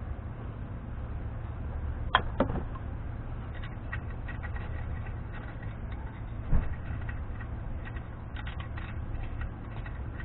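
A few light metal clicks and taps as the lock ring on a Dana 44 front spindle is worked with hand tools to line its hole up with the locating pin; the sharpest click comes about six and a half seconds in. A steady low hum runs underneath.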